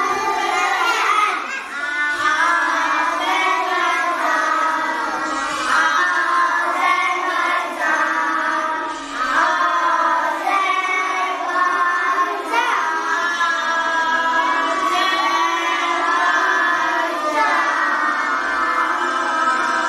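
A group of young schoolchildren singing a song together.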